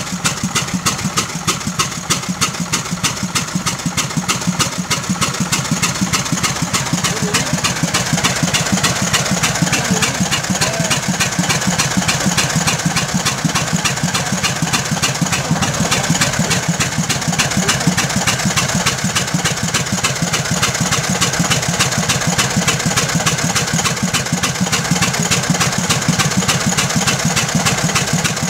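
1907 Waterous fire engine's 16 hp gasoline engine running steadily with a rapid, even beat, driving its 330 GPM pump.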